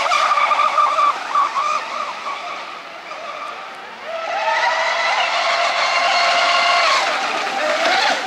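High-pitched motors of radio-controlled model speedboats running flat out across the water. The sound dies down around the middle, then swells again about four seconds in as a boat comes closer, its pitch rising slightly.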